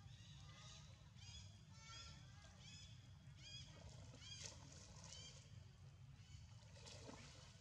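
Faint, short, high-pitched squeaky animal calls repeated in a string, about one or two a second, over a low steady rumble.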